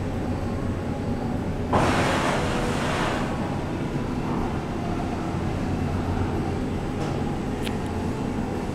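1975 Otis traction service lift at the landing: a steady low hum, with a sudden hissing, sliding burst of noise about two seconds in that fades over a second or so as the doors open on the car's arrival. There are faint clicks near the end.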